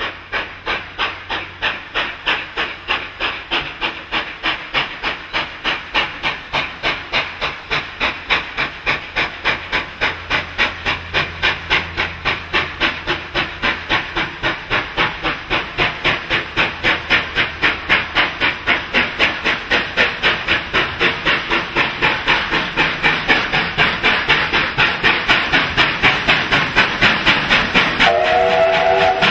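Exhaust beats of NSW C38 class streamlined Pacific steam locomotive 3801 hauling its train: a steady chuff at about three to four beats a second, growing louder as the engine draws near. A short whistle blast sounds near the end.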